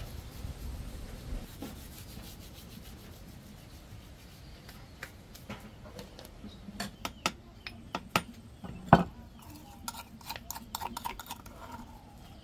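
Hands rubbing oregano into raw chicken, a low rustling scrub, followed by scattered sharp clicks and taps of kitchenware, the loudest about nine seconds in.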